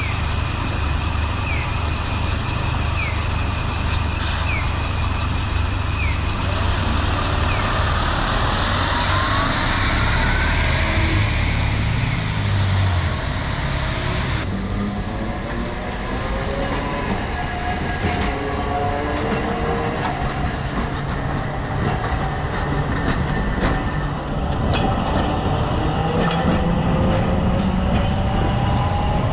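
A city bus's diesel engine running with a low rumble, rising in pitch about ten seconds in as the bus pulls away. After a sudden cut about halfway through, street traffic and a Hakodate streetcar moving off, its motor whine slowly rising in pitch.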